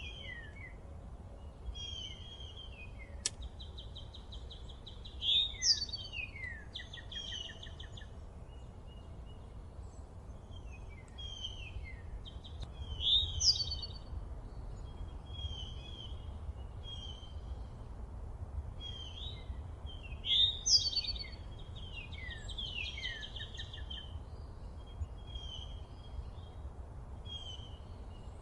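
Several songbirds singing and calling, with repeated chirping phrases and short trills that are loudest about five, thirteen and twenty seconds in, over a steady low outdoor rumble. A single sharp click comes a little after three seconds.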